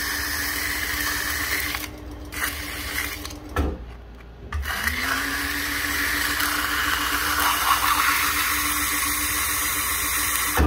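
A Juki DNU-1541S walking-foot sewing machine, driven by a Consew CSM brushless servo motor, runs with no thread while fine-grit sandpaper is held against its spinning handwheel hub to sand it down for a needle positioner. The motor gives a steady whine under a sanding hiss. It stops a little over three seconds in, then starts again about a second later, its pitch rising as it comes up to speed.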